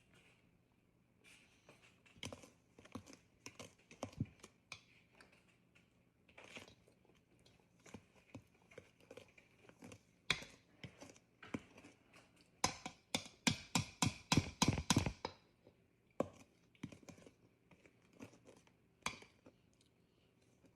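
A spoon stirring cake batter in a mixing bowl: scattered scrapes and knocks of the spoon against the bowl, with a quick run of knocks for a couple of seconds past the middle.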